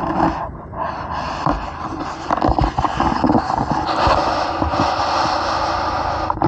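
Rubbing, scraping and knocking of a handheld 360 camera as it is moved against a car's door and window, over a steady rushing noise that sets in about a second in.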